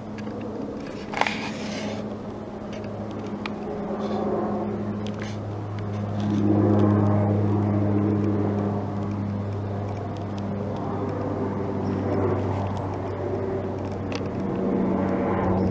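An Amtrak train's locomotive running with a steady low drone. It grows louder about six seconds in and swells again near the end.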